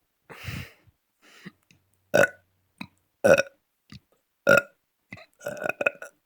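A person burping repeatedly: short separate burps about a second apart, the loudest three evenly spaced through the middle, then a quick run of several burps near the end.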